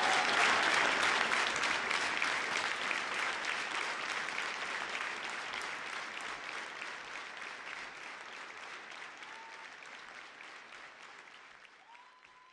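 Audience applauding, the clapping fading away steadily, with a brief whistle and then a longer held whistle near the end.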